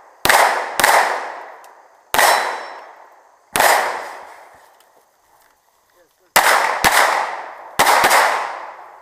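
Seven pistol shots, fired singly and in quick pairs, each sharp crack ringing away over about a second.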